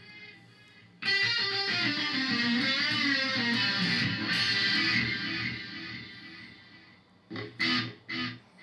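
Electric guitar played through a Korg A5 multi-effects unit's delay with feedback turned up: a chord struck about a second in, with bent, wavering notes, that fades away, then three short stabbed notes near the end.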